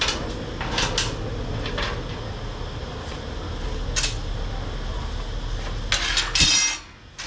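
Sharp metal clinks as steel pieces are set down on a perforated steel welding table, then a quick run of ringing clanks near the end as long steel bars are laid on the table. A steady low hum runs underneath and stops about six and a half seconds in.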